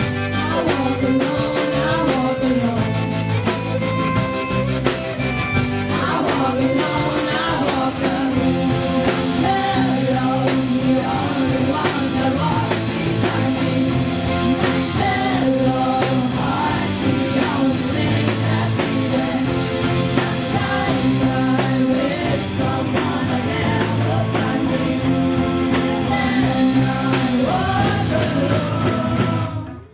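School rock band playing live: several voices singing the melody over electric guitar, bass and drum kit. The music drops out abruptly just at the end.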